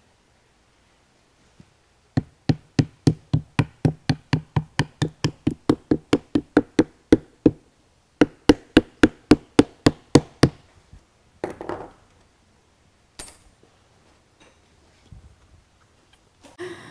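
A hammer tapping the nails of a metal upholstery tack strip down through fabric into the chair frame: quick, even taps about four a second in two runs with a short break between, then a couple of isolated knocks and a sharp click.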